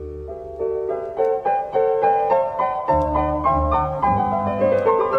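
Piano interlude music: a line of quick single notes climbing in pitch over low bass chords that sound at the start and again about three seconds in.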